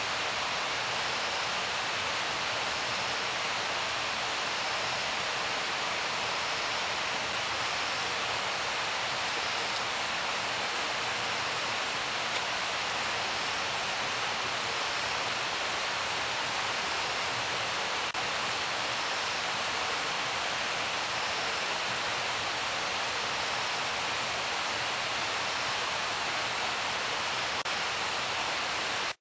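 A steady, even hiss of noise with no breaks or separate sounds in it.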